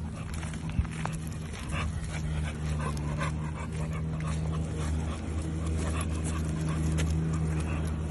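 A dog whimpering in short, repeated whines over a steady low hum.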